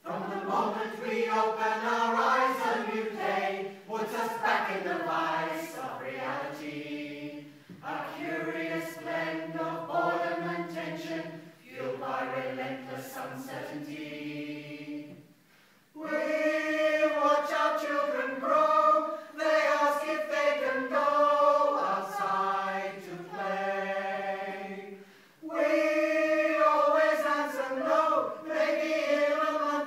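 A choir singing, starting suddenly, in phrases broken by short pauses.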